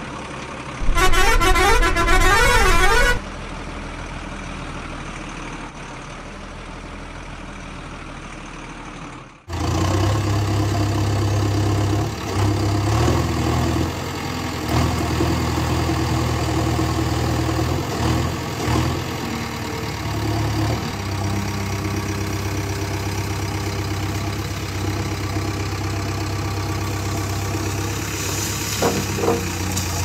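Dubbed vehicle sound effects. Near the start a truck horn sounds a warbling, pitch-changing tune for about two seconds, then an engine idles low. From about nine seconds in, a louder heavy-vehicle engine, a backhoe loader's, runs steadily.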